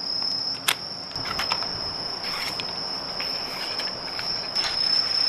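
Grass insects trilling steadily in one continuous high-pitched tone. A sharp click comes just under a second in, with a few fainter clicks and rustles after it.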